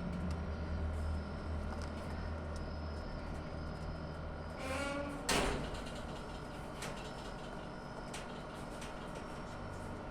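A turkey's short call a little before halfway, followed at once by a sharp knock, over a steady background hum.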